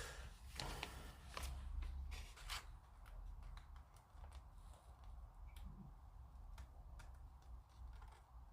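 Faint clicks and light handling of small plastic model-kit parts being test-fitted together by hand, a few sharp ticks in the first three seconds and sparser ones later.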